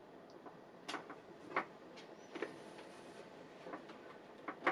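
Hand-sewing heavy canvas: scattered faint clicks and scrapes at irregular intervals as a needle is pushed through the cloth and the thread is drawn tight.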